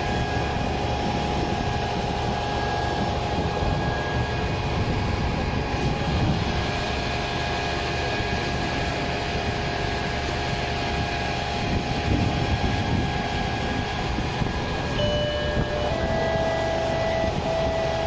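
Steady engine drone with a wash of hiss, the kind made by a fire engine running its pump at the scene of a fire. A few short high tones sound near the end.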